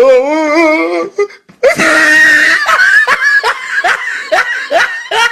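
A high-pitched kuntilanak ghost laugh: a wavering, wobbling wail for about a second, then a long shrill cackle in quick pulses, about three a second.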